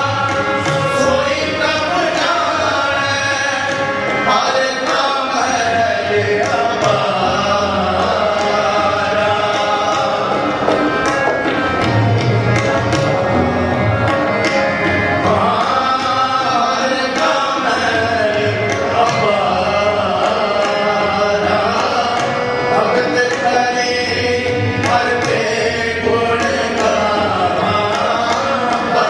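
Sikh shabad kirtan: men singing a devotional hymn to harmonium accompaniment, with tabla keeping a steady beat.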